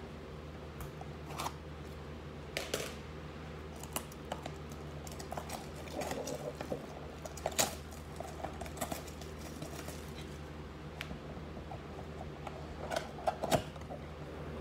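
Cellophane shrink wrap being torn and peeled off a cardboard trading-card blaster box, irregular crinkles and clicks, then the box's cardboard top flaps being pulled open near the end.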